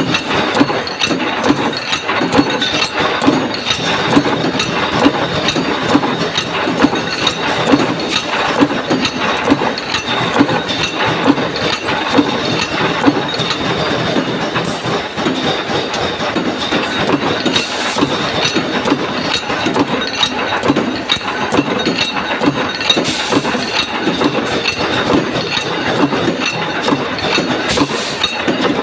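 Punch press for sheet-metal rings running continuously, stamping plate rings with a steady, rapid clatter of repeated strokes.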